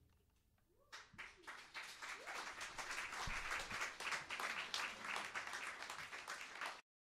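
Audience applauding: the clapping starts about a second in, fills out quickly, and cuts off suddenly near the end.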